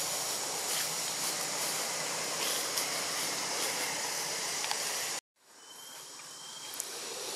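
Steady high-pitched hiss of forest ambience. It cuts out dead about five seconds in and returns quieter after an edit, with a brief faint high squeak soon after.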